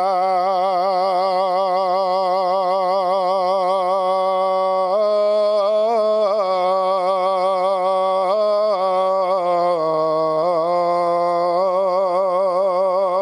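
A muezzin's male voice chanting the adhan, drawing out the phrase "hayya 'ala s-salah" as one long, ornamented sung note with a wavering vibrato and a few melodic turns.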